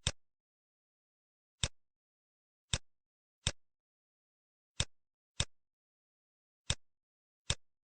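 Computer mouse clicking: eight single sharp clicks at uneven intervals, with dead silence between them.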